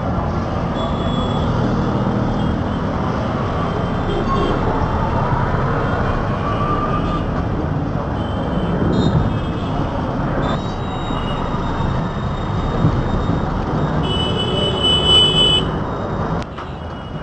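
City road traffic heard from a moving vehicle: steady road and tyre noise over a low engine hum. A high-pitched tone sounds for about a second and a half near the end.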